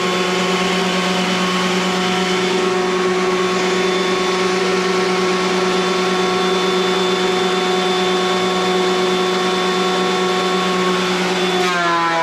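Craftsman thickness planer running with a steady, loud motor whine as chainsaw-milled planks are surfaced; near the end the pitch drops.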